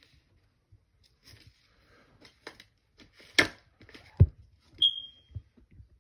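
Scattered clicks, crackles and knocks. The loudest are a sharp crackle about three and a half seconds in and a dull thump just after four seconds, followed by a short high tone near five seconds.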